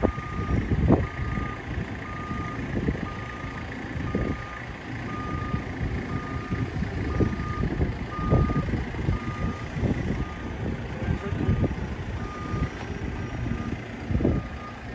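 Reversing alarm of a JCB Loadall 541-70 telehandler beeping steadily about once a second as it backs away carrying a load, over its diesel engine running.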